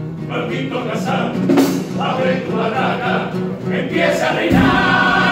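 Male carnival comparsa chorus singing in close harmony. About four and a half seconds in, the voices swell into a louder held chord.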